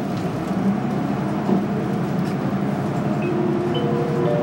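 City bus engine and drivetrain heard from inside the cabin as the bus pulls away from a stop and accelerates: a steady low hum, with a whine that steps up in pitch over the last second or so.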